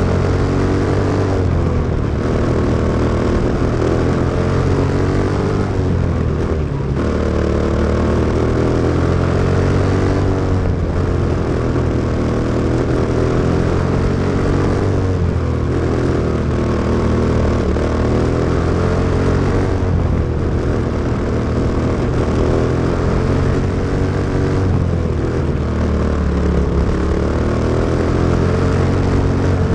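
Briggs & Stratton Animal single-cylinder four-stroke engine of a quarter midget racing car running hard, heard on board at close range. Its pitch drops and climbs again every four to five seconds as the driver lifts for the turns and accelerates down the straights.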